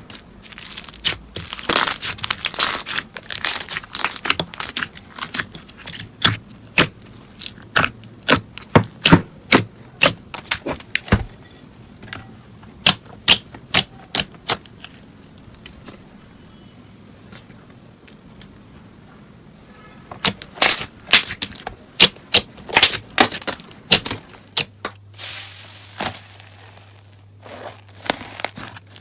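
Slime being pressed and worked by hand, giving irregular sharp crackling and popping clicks, with a quieter stretch about halfway through.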